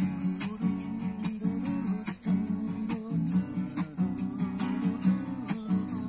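Acoustic guitar strummed in a steady rhythm, playing chords.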